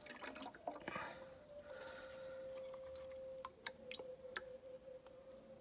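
Water scooped from a betta fish tank with a clear plastic container: faint clicks and knocks of the plastic against the tank, with a steady faint tone starting about a second in.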